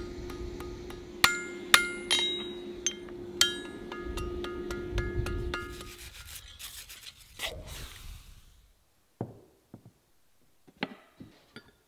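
Hammer striking the hot steel-cable bottle opener on an anvil, about five sharp ringing blows in quick succession over a steady hum, then scraping as the piece is rubbed or brushed. After a cut, a few faint light knocks as a hand handles a glass bottle on a wooden table.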